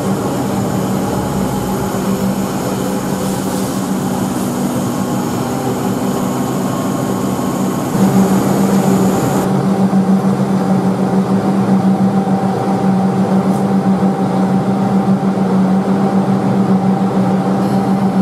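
Comeng electric suburban train standing at an underground platform, its equipment giving a steady hum with a strong low tone. The hum grows louder about eight seconds in.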